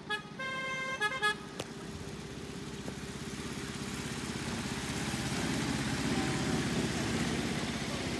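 Miniature railway locomotive's horn: a short toot, a longer one of about half a second, then two quick toots. Then the passenger train runs past on the track, its wheels rumbling on the rails and growing louder.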